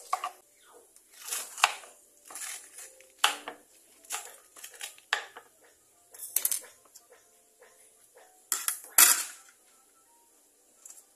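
Kitchen clatter: irregular knocks of a knife on a cutting board and of metal pans and utensils being handled, about ten separate strikes with the loudest pair near the end.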